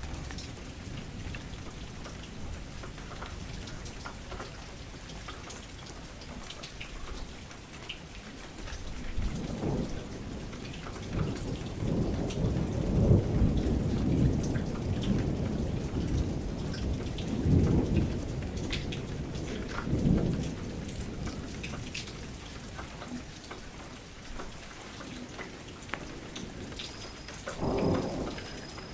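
Steady rain falling, with thunder rumbling in low, rolling swells: a long one about a third of the way in, shorter ones around the middle, and another near the end.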